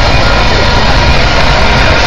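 Union Pacific No. 844, a 4-8-4 steam locomotive, standing close by with a loud, steady hiss and low rumble from its steam plant.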